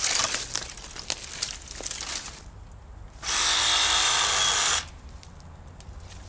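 Cordless reciprocating (sabre) saw running in one steady burst of about a second and a half, about three seconds in, with a few light knocks and rustles before it.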